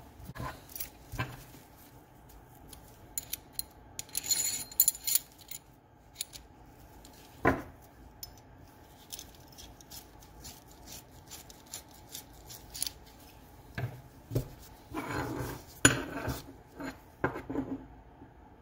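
Small steel parts of a buck saw's tension adjuster (a threaded rod, the stamped adjuster and a wire clip) clinking and scraping as they are handled and set down on a wooden workbench. Scattered sharp clicks, a louder knock about halfway through, and short stretches of metal scraping.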